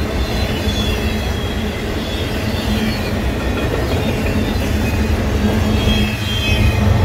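Freight train's autorack cars rolling past at close range: a steady rumble of steel wheels on rail with faint wheel squeal. The diesel engine of the pushing locomotive at the rear grows louder near the end.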